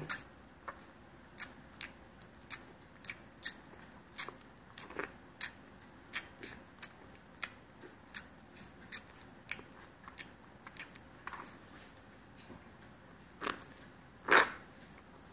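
Newborn puppy suckling from a small nursing bottle: a steady run of soft wet clicks, about two a second, with a louder click near the end.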